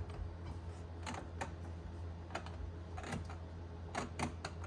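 Irregular light clicks and taps of a circuit board being pressed down and seated onto the plastic pins of a 2003 Ford F-150 instrument cluster housing, with a steady low hum underneath.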